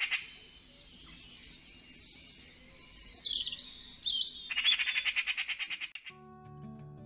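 A magpie's rapid rattling chatter fades out at the start, then come a couple of short squawky calls about three seconds in and a second burst of rattling chatter. About six seconds in, plucked-guitar music starts.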